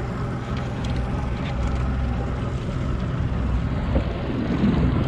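Outboard motor of a small boat running steadily at low speed, a continuous low hum.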